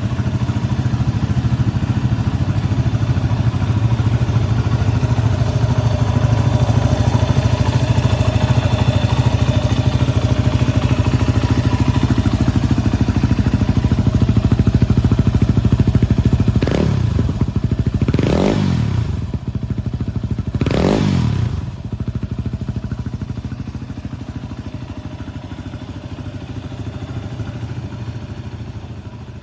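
2017 Yamaha WR250X's 250 cc single-cylinder four-stroke engine, breathing through an SP Tadao header pipe and FMF silencer, idling steadily, then blipped three times in quick succession about two-thirds of the way through, each rev rising sharply and dropping back to idle.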